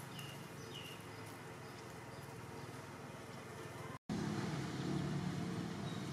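Steady outdoor background noise, a low rumble with hiss, with a few faint short high chirps in the first second; it drops out briefly about four seconds in and comes back louder.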